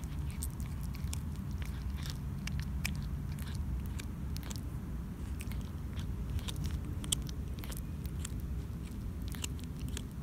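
Domestic cat chewing on a rat carcass: irregular wet clicks and crunches of teeth on flesh, over a steady low rumble.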